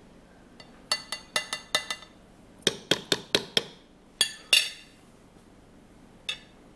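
A metal kitchen utensil tapping and clinking against cookware: a dozen or so short, ringing clinks in quick groups, the two loudest past the middle and a single one near the end.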